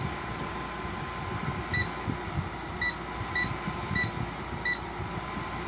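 2007 Frigidaire 5200 BTU window air conditioner running on cool, with five short high beeps from the unit over about three seconds as it takes commands from the remote.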